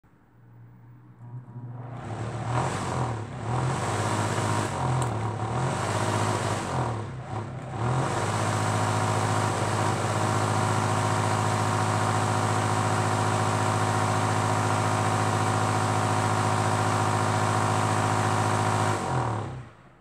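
Microwave oven cooling fan running on its motor, a strong electrical hum with the rush of air from the plastic blade. It starts a second or two in and swells and dips unevenly for several seconds. It then runs steadily and dies away just before the end.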